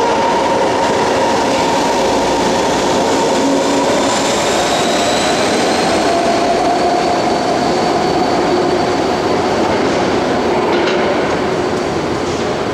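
BART train pulling out of a station platform and moving away: a loud, steady rolling noise with a high whine whose pitch drifts slightly, easing off a little near the end as the train recedes.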